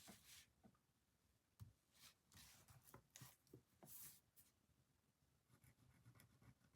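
Faint scratching strokes and light taps of a pen writing on paper, over quiet room tone.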